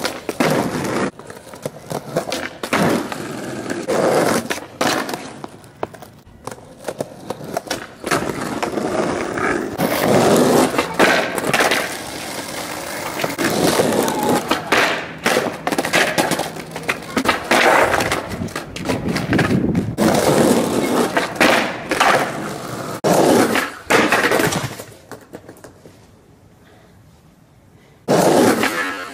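Skateboard on concrete and asphalt: wheels rolling, with the board's tail popping and the board and trucks clacking down again and again as tricks are landed. There is a quieter lull near the end, then another sharp hit.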